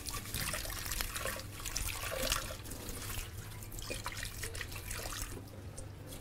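Water running from a kitchen tap into a sink while a mixing bowl is washed by hand under it, the flow splashing unevenly; it thins out near the end.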